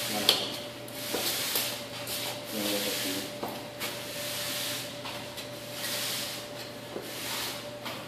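Push broom sweeping a concrete floor in repeated scraping swishes, roughly one stroke a second, over a faint steady hum.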